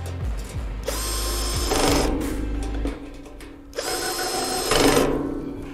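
Power drill driving fasteners in two runs of about a second each, its motor whining steadily while it turns.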